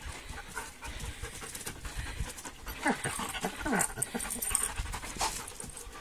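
Dogs panting hard from jumping exercises, with a few short falling sounds around the middle.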